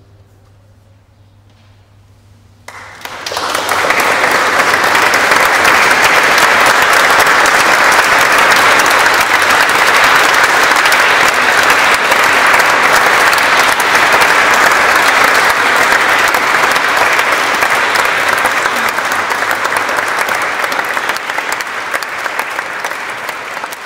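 Audience applause: after about two and a half seconds of near quiet it breaks out suddenly, holds steady, and eases off slightly near the end.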